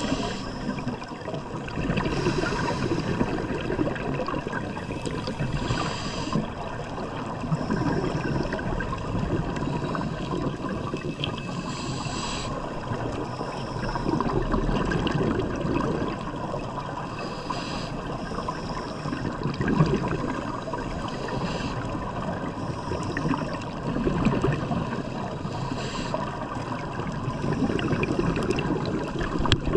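Scuba regulator breathing heard underwater: a hiss of inhalation and a bubbling rush of exhaled air, repeating every few seconds.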